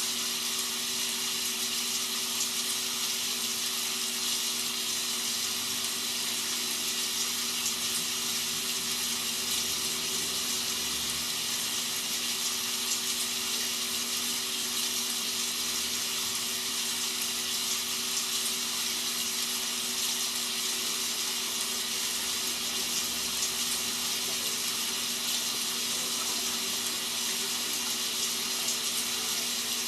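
Rain sound effect: a steady, even hiss of rainfall with a low, steady hum underneath.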